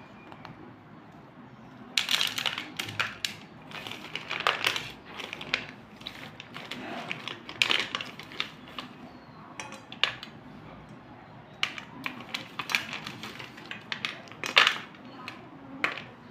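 Broken slate pencil sticks clinking and clattering against one another and a steel plate as wet hands scoop, stir and let them fall. It is an irregular run of sharp clicks that starts about two seconds in.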